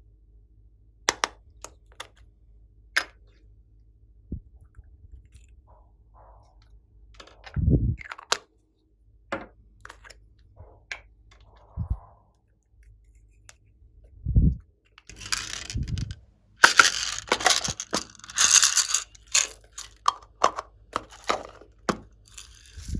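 Slime and small add-in items being handled and mixed: scattered sharp clicks and taps and a few dull thuds, then, from about fifteen seconds in, several seconds of dense crackling and crunching.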